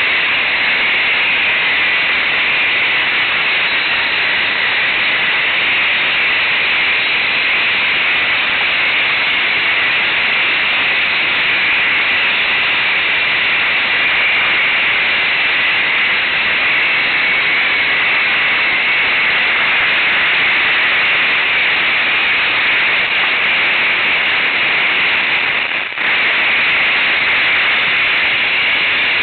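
Steady, loud, even rushing hiss from a camera microphone riding on a moving ATV, with no engine note standing out. There is one brief dip about three seconds before the end.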